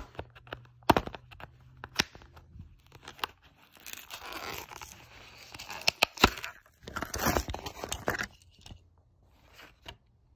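A Hot Wheels blister card being torn open by hand. A few sharp clicks come as the plastic blister pops, and there are two longer stretches of tearing card and crinkling plastic, about four and seven seconds in.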